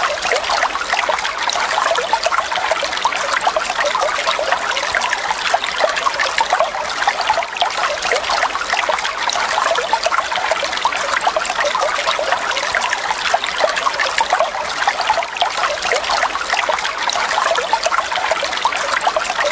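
Running water trickling steadily, a continuous dense patter of small splashes with no swells or pauses.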